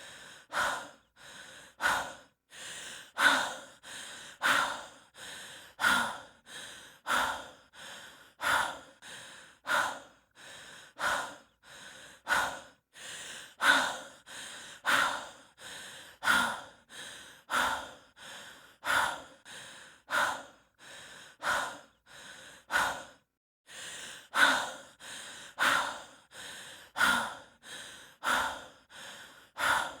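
A person breathing hard and fast, out of breath from hiking: a louder breath and a softer one in turn, about one full breath every second and a half, with one short break about three-quarters of the way through.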